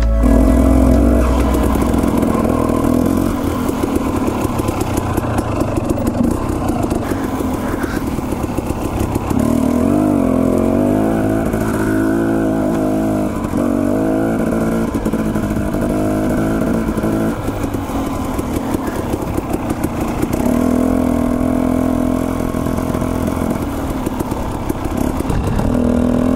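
Dirt bike engine running while riding a trail, its pitch rising and falling again and again as the throttle opens and closes.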